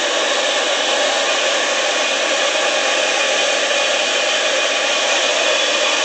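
Whole turkey deep-frying in a large aluminium pot of hot oil on a propane burner: a steady, loud sizzling hiss.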